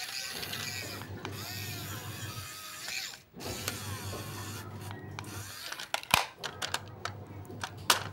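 The toy RC transformer car's small electric motor and plastic gears whirring as the car transforms, with a brief break about three seconds in. A few sharp plastic clicks and knocks follow near the end.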